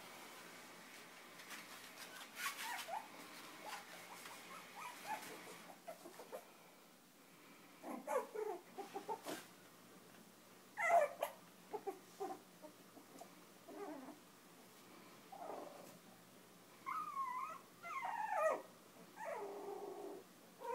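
Five-week-old Chinese Crested puppies whimpering and squeaking in short, scattered cries as they play and nurse, with a run of higher squeals near the end.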